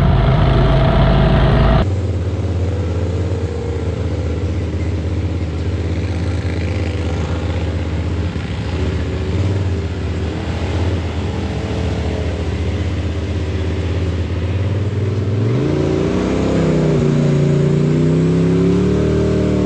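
Side-by-side UTV engine running steadily along an off-road trail. The sound shifts abruptly about two seconds in. Near the end the engine pitch rises and wavers as the machine accelerates.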